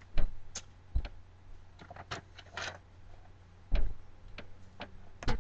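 Scattered thumps and light clicks and knocks as someone moves about a small room and handles objects while fetching a makeup brush, over a faint steady hum.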